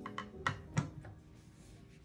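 Background music with four sharp knocks in the first second, the last two the loudest: the rifle's barrel and receiver being set down into its wooden stock.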